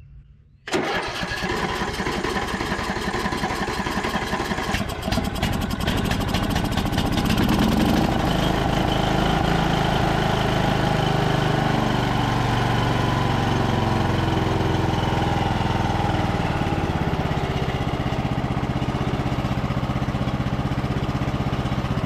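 Bolens riding mower's engine cranked on choke for its first start after its carburetor was cleaned: it catches under a second in, picks up speed over the next several seconds, then settles into steady running.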